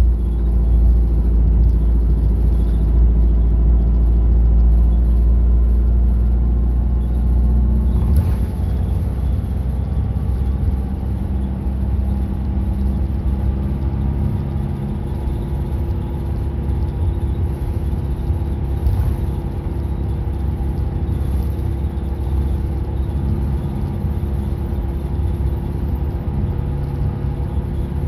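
Route bus engine and cabin noise heard from inside the bus: a steady low hum, then a sharp click about eight seconds in, after which the low rumble turns rougher and noisier.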